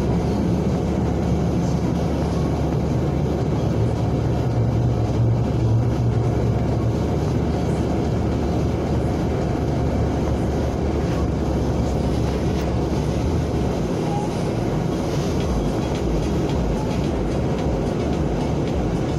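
Road vehicle driving: steady low engine and road rumble.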